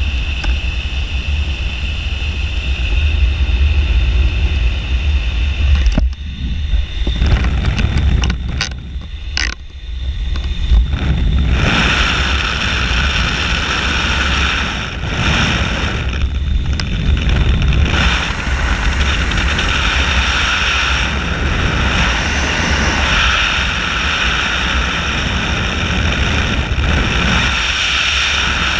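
Steady rush of air and wind buffeting the microphone inside the cockpit of a two-seat aerobatic glider in flight, with a low rumble and a hissing whistle. The hiss drops away for a few seconds around the middle and then comes back.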